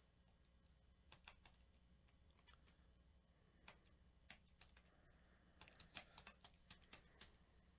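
Near silence with faint, scattered clicks of typing on a computer keyboard, coming more thickly in the last two seconds.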